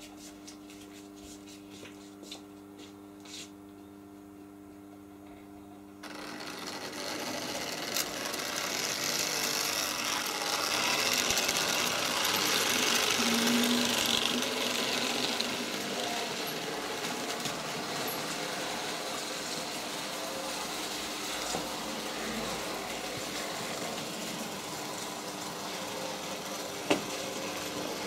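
Märklin model train starting off about six seconds in: its electric motor and wheels on the metal track set up a steady whirring run that is loudest a few seconds later and then holds steady. Before it starts there is only a low steady hum with a few light clicks.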